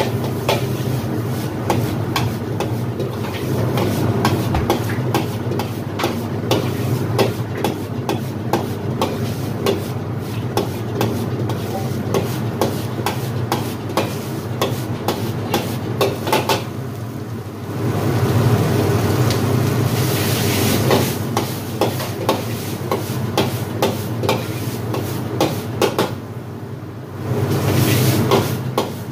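Metal wok spatula scraping and clanking rapidly against a carbon-steel wok as fried rice is stir-fried, with sizzling, over a steady low hum. The hissing grows louder for a few seconds around the middle and again near the end.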